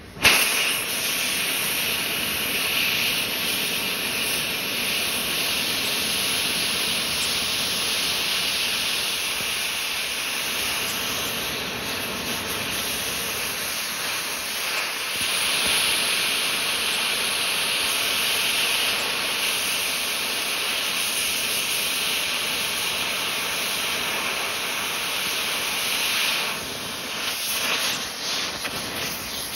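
Oxy-acetylene torch flame hissing steadily as it melts down a pistol. The hiss comes on sharply right at the start and turns uneven in the last few seconds.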